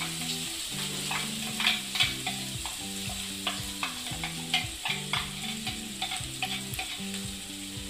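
Onion frying in hot oil in a kadai, sizzling as it is stirred, with a spatula clicking and scraping against the pan many times.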